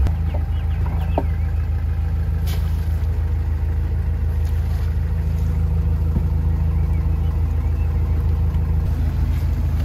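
Narrowboat's diesel engine idling steadily.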